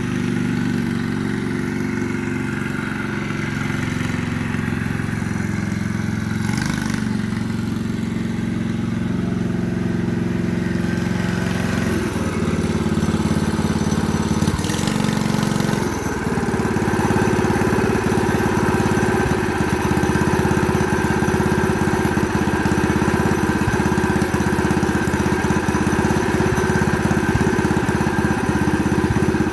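Predator 212 single-cylinder engine with a straight pipe, running steadily; it gets somewhat louder about halfway through.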